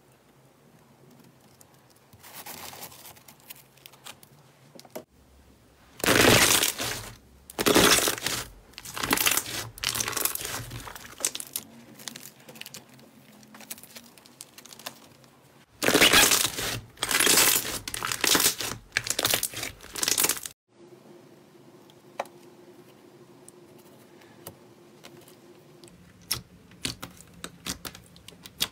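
Slime being pressed, squeezed and folded by hand, giving two spells of loud wet crackling and popping several seconds long, with fainter squishes and small clicks in between.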